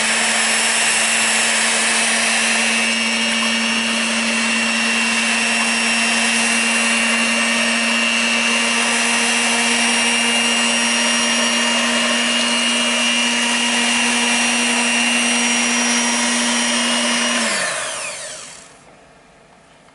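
Electric mixer motor running steadily at high speed as it mixes the ice cream base. It is switched off near the end and winds down with a falling whine.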